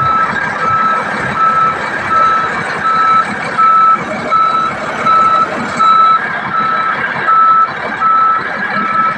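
Bulldozer's reverse alarm beeping steadily, about one and a half beeps a second, over its diesel engine running: the machine is backing up.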